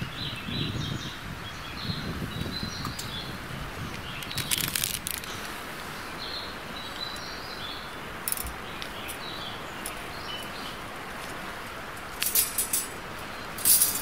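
Outdoor ambience with small birds chirping now and then, and a few short sharp clicks, the loudest in a cluster near the end.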